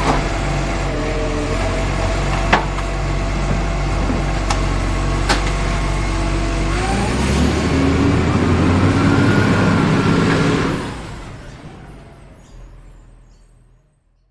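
Heavy truck engine running steadily, with a few sharp clicks, then revving up about seven seconds in before fading away to silence near the end.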